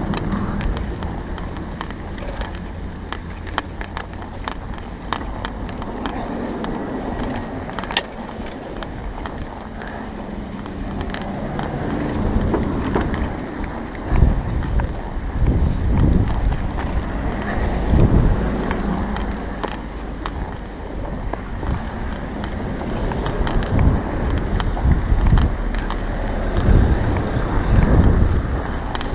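Riding a bicycle through fresh snow: wind noise buffeting the action camera's microphone over a steady low rumble of the ride. It grows louder and gustier about halfway through.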